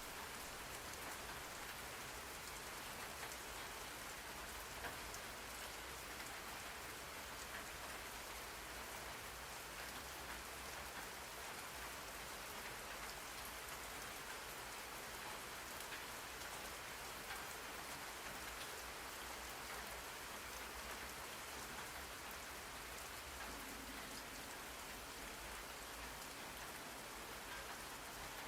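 Steady rain falling on a surface, an even hiss dotted with faint drop ticks, used as a white-noise background for studying.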